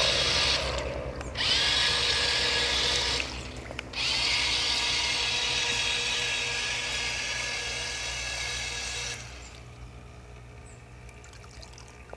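Small electric motor of a toy amphibious remote-control truck whining as it drives through pool water, in three spurts with short pauses. It stops about nine seconds in.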